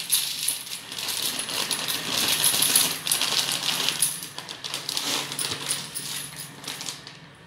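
Dry fusilli pasta poured from a plastic packet into a metal bowl: a dense rattling clatter of hard pasta pieces striking the metal and each other, dying away near the end.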